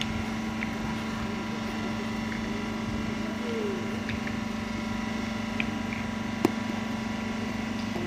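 Steady low mechanical hum with faint voices in the background. A single sharp click about six and a half seconds in, and a smaller tick about a second before it.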